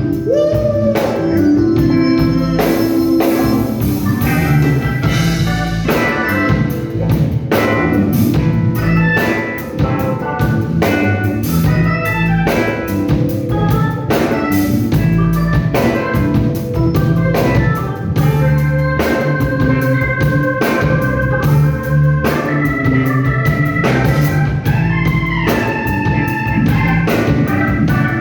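Live blues band playing an instrumental passage without vocals: a drum kit keeps a steady beat under organ and other instruments.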